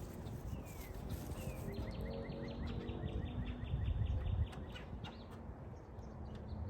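A bird gives two short falling chirps, then a fast, even trill of about six notes a second lasting nearly three seconds, over a steady low rumble of outdoor noise.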